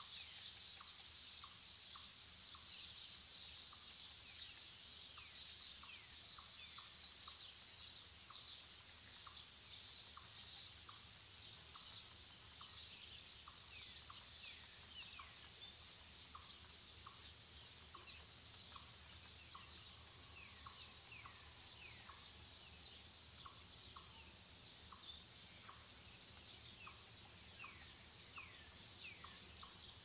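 Woodland birdsong: many birds chirping at once in quick falling notes, busiest a few seconds in. Underneath, a soft short note repeats every half second or so, over a steady high hiss.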